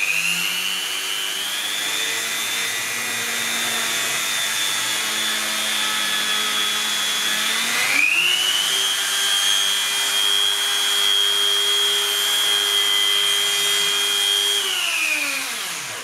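TASP MMD002 130 W mains-powered rotary multi-tool motor running with a steady high whine. It spins up at the start, changes speed about halfway through, and spins down near the end.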